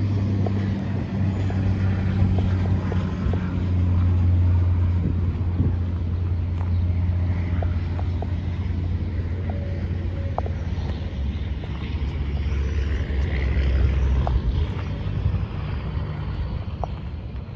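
A steady low engine hum that shifts slightly lower in pitch about halfway through, with a few faint clicks over it.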